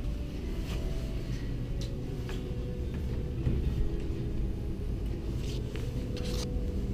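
Steady muffled low rumble of a hand-carried camera being walked along, with a few faint clicks and taps, the strongest a little after six seconds in.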